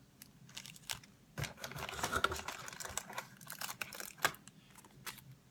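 Plastic packaging crinkling and rustling, with scattered sharp clicks and taps, as small wrapped items are handled in a cardboard box; the rustling is busiest from about a second and a half in until near the end.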